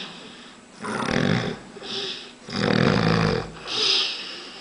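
A man snoring, loud and rattling: two snores about two seconds apart, each followed by a short hiss.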